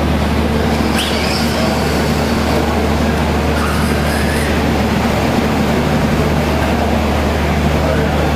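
Steady low hum of a large indoor hall, with a few faint brief higher whines and clicks over it.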